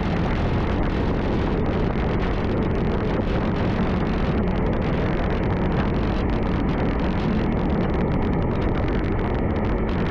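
Steady riding noise from a Yamaha WR155 motorcycle at cruising speed on a wet road: wind rush on the camera microphone over the single-cylinder engine running at an even pace.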